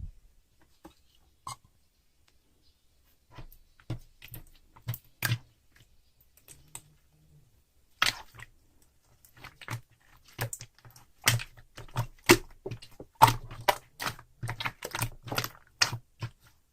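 Typing: irregular clicking keystrokes, a few scattered taps at first, then quicker runs of keys from about eight seconds in.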